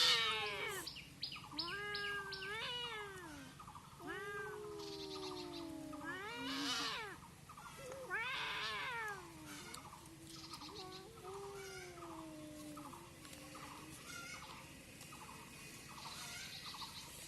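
Cats yowling at each other in a fight: a string of long, wavering caterwauls that rise and fall in pitch, the loudest right at the start. Fainter short repeated cries follow in the second half.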